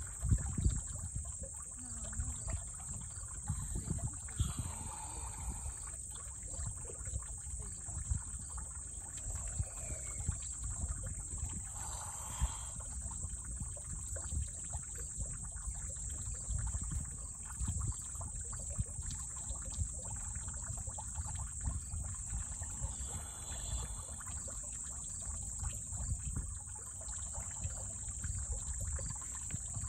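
A steady high-pitched insect chorus, with the sloshing and trickling of muddy water as two common snapping turtles wrestle in a shallow puddle. A low rumbling noise runs underneath.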